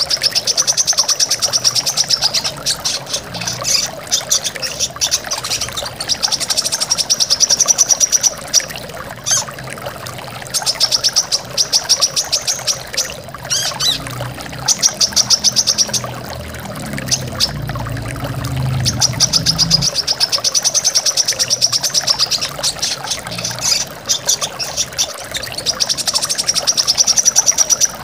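Brown-throated sunbird singing: fast, high trilled phrases of a second or two each, repeated with short gaps, over the steady rush of a waterfall. A low rumble comes in briefly about midway.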